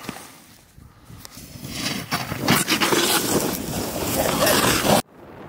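Snowboard carving hard on packed snow: a scraping hiss of the edge cutting in swells over a couple of seconds, with snow spraying up, then cuts off abruptly near the end.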